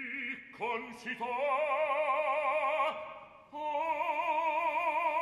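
Operatic baritone singing long held notes with a wide, even vibrato. The first note slides up about a second in, and a short breath break comes about three seconds in before the next held note.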